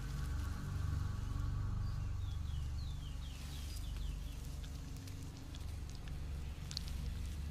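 Jungle ambience: insects buzzing for the first couple of seconds over a steady low rumble, then a quick run of about six short falling chirps two to three seconds in.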